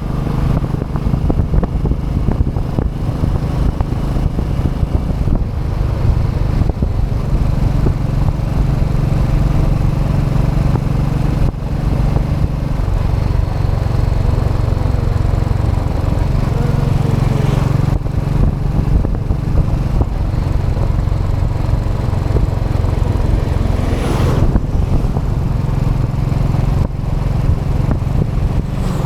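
Royal Enfield Classic 500 EFI's single-cylinder engine through its stock exhaust, running steadily under way on the road.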